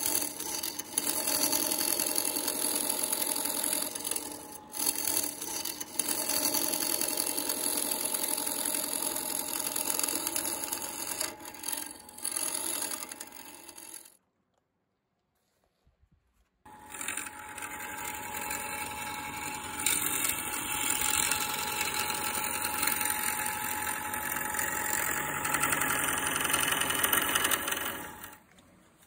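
Wood lathe running while a turning gouge cuts a spinning wood-and-epoxy blank: a steady, dense scraping noise with a rattle from the machine. It cuts out to silence for about two seconds midway, then carries on as before and fades near the end.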